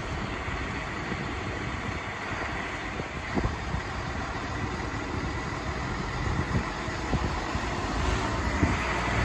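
Siemens Desiro diesel railcar running at a station platform as it starts to move off slowly, its engine noise growing louder near the end.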